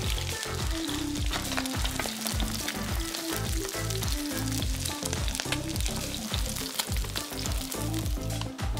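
Roasted cauliflower sizzling and crackling in a hot frying pan with white wine as it is tipped in, over background music with a steady beat.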